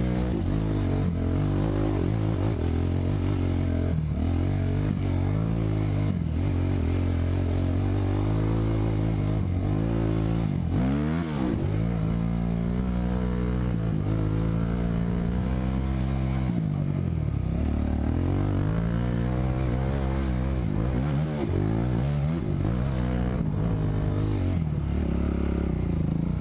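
2006 Honda CRF 250X dirt bike's single-cylinder four-stroke engine revving under load on a trail climb, its pitch rising and falling over and over with the throttle, with a sharp drop and climb about eleven seconds in. Short knocks and clatter from the bike over ruts and rocks.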